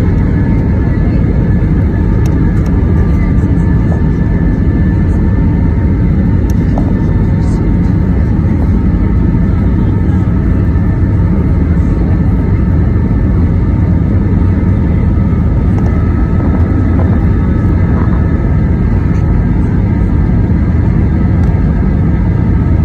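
Airbus A320's IAE V2527-A5 turbofan engines at reduced (flex) takeoff thrust, heard from the cabin over the wing. A loud, steady rumble runs throughout, with a high engine whine held at a constant pitch.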